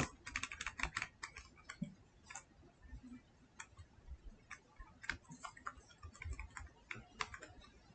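Faint, irregular keystrokes on a computer keyboard, coming in short runs with pauses between them.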